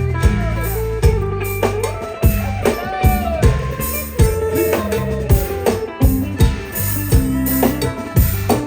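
An Isan pong lang folk band playing: plucked strings and drums keeping a steady beat under a melody line with bending notes.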